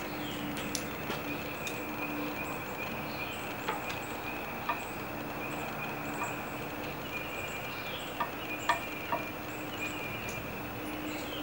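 Outdoor summer ambience: a steady high insect drone, over a low steady hum, with scattered short clicks or chirps.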